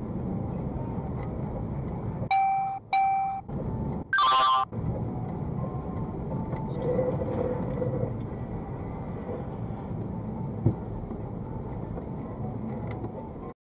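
Steady road and engine noise inside a car driving on a snowy highway. Two short electronic beeps come a couple of seconds in, a loud, harsh pitched blast follows about four seconds in, and there is a single knock near the end.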